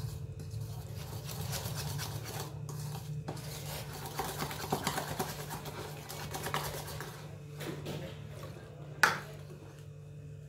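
Wire whisk beating wet brownie batter in a bowl: fast, continuous scraping and clicking against the bowl's sides, with one sharp knock about nine seconds in, the loudest sound.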